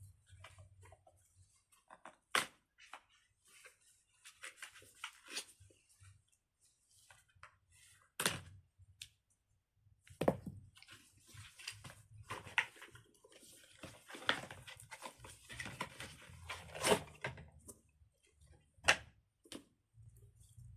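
Scissors cutting tape and a fidget's packaging being handled and opened: irregular snips, clicks and crinkles, with a few sharper snaps.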